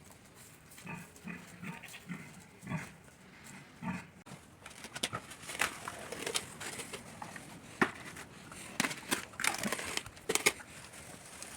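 A pig grunting softly, with scattered scraping, knocking and clicking from hand tools scooping out the pen's floor drains.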